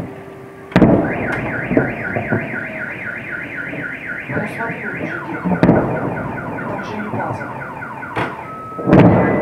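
Explosions at a burning munitions depot: a heavy boom just under a second in, another at about five and a half seconds and the loudest near the end. Right after the first boom a car alarm sets off, wailing in fast rising-and-falling sweeps, then switching to a steady on-off tone near the end.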